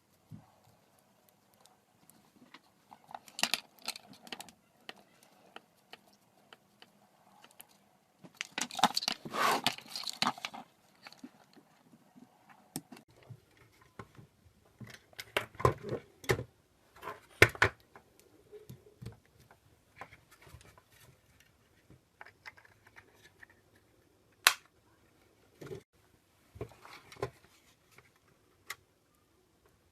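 Intermittent handling noises: clusters of clicks, rattling and rustling, with a few single sharp clicks between them.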